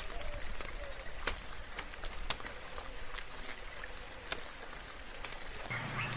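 Steady soft rainfall with many single drops ticking close by, and a few faint bird chirps near the start. A low hum comes in just before the end.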